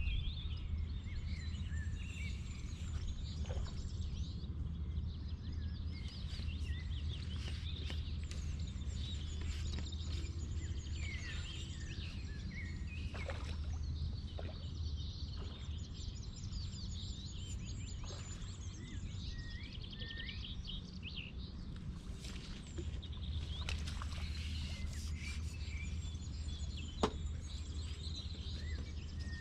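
Small birds chirping and trilling on and off over a steady low outdoor rumble, with one sharp click about 27 seconds in.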